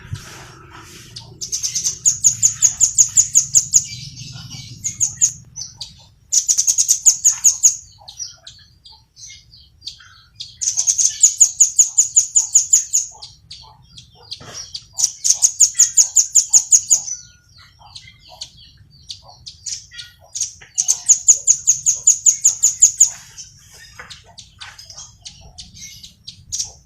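Small songbird singing in fast, high, evenly repeated trills ('tembakan'), about eight notes a second, in five bursts of about two seconds each, with scattered softer chirps between the bursts.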